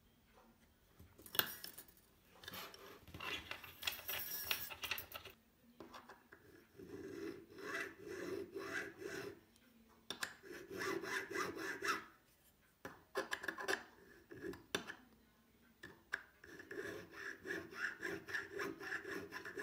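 Hand file scraping back and forth across a small metal part held in a bench vise, in several runs of quick strokes with short pauses between.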